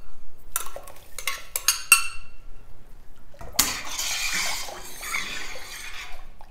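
A metal spoon clinks and taps several times against a glass bowl as sugar is scraped out of it into a stainless steel pot. From about three and a half seconds in, a steady swishing as the liquid in the pot is stirred.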